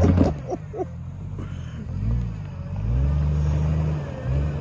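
Off-road vehicle's engine revving in repeated pushes, its pitch rising and falling, with the longest, loudest push about three seconds in.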